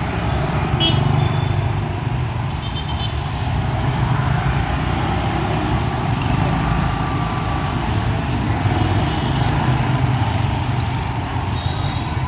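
Street traffic noise: a steady rumble of passing road vehicles, with a few short high beeps.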